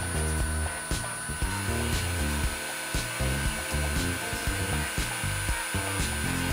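Background music with a steady beat and a moving bass line, over the steady airy whir of a Freund SPIR-A-FLOW rotating fluid-bed granulator dryer running, with a constant high whine.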